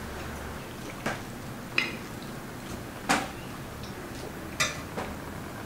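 Metal cutlery clinking against china plates during a meal: about five short, separate clinks at irregular intervals.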